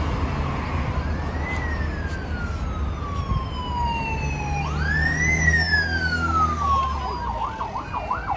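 A siren sounding in two slow wails, each rising quickly then falling slowly, then switching to a fast warbling yelp near the end, over a steady low rumble.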